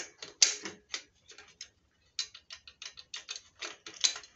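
Screws being tightened by hand into a wooden workbench: a run of quick, irregular clicks and small knocks, with louder ones about half a second in and near the end.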